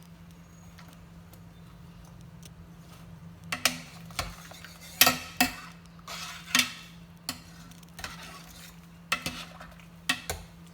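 Metal ladle or spoon clinking against a cooking pot while skimming foam off pig ears as they boil: about ten irregular clinks, starting a few seconds in.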